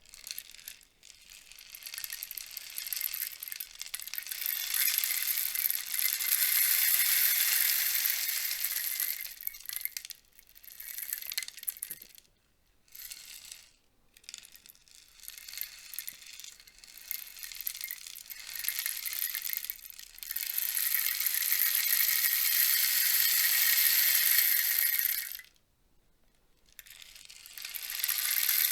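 Rainstick tipped over and over, its loose filling trickling down inside as a rattling, hissing patter. It comes in several pours with short pauses between them: a long one at the start, a run of shorter ones in the middle, another long one, then a new pour swelling near the end.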